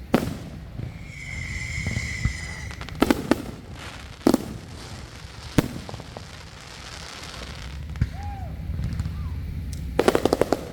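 Backyard consumer fireworks going off: a sharp bang, then a steady high whistle lasting about two seconds, several separate reports a second or so apart, and a rapid string of bangs near the end.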